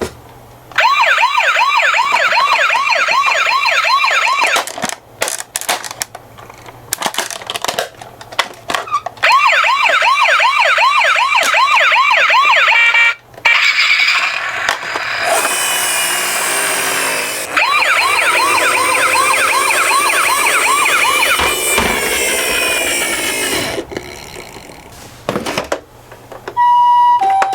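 Toy ambulance minicar's electronic siren, a fast warbling wail rising and falling about three to four times a second. It sounds in several stretches, with short breaks and clicks between them.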